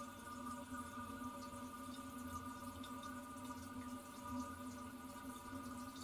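Toilet cistern refilling after a flush, heard very close: a steady, faint run of water through the fill valve, with a low hum, several higher held tones and scattered faint ticks.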